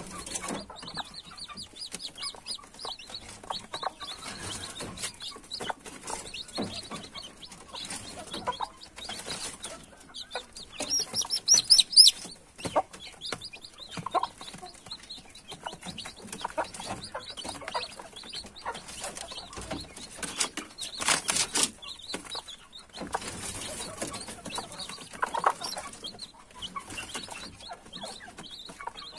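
Chicks peeping constantly in short high notes while a mother hen clucks low among them, with scattered taps of pecking at grain on the tray. About eleven seconds in a chick lets out a loud run of quick falling peeps, and there is a brief loud rustle about twenty-one seconds in.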